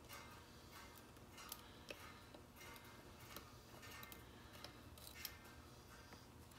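Faint, scattered clicks and light scrapes of a hook pick working the pin stack of a Euro cylinder lock held under turning tension.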